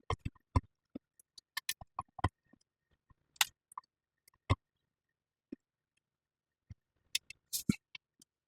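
Small 3D-printed resin parts being set down one at a time on a curing tray: irregular light clicks and taps, a few quicker ones near the end.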